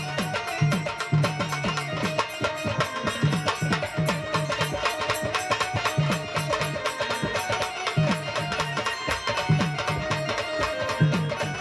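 Instrumental passage of Indian folk music: drums keep a steady beat, about two to three strokes a second, under a held melody line, with no singing.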